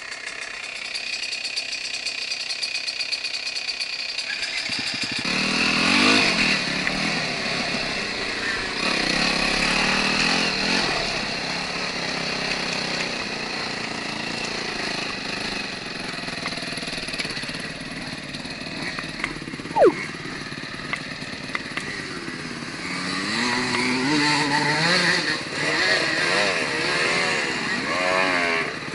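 Enduro motorcycle engine running as the bike is ridden off-road, revving up and down, getting louder about five seconds in. A brief sharp sound stands out a little before two-thirds of the way through.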